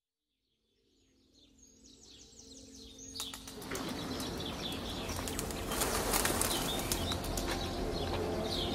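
Birds chirping, with a flutter of wings, over steady background noise. It fades in from silence over the first few seconds.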